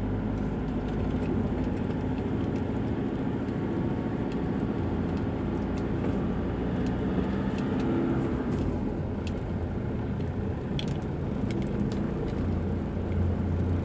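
Steady engine and tyre rumble of a moving car, heard from inside the cabin, with a few faint clicks in the second half.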